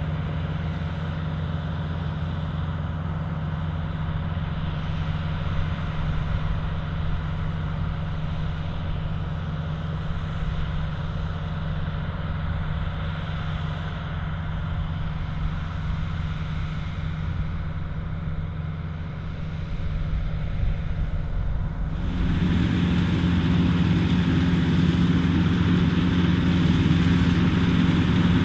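Self-propelled combine harvester running steadily under load, its engine giving a low, even drone. About three quarters of the way through, the sound abruptly becomes louder and fuller.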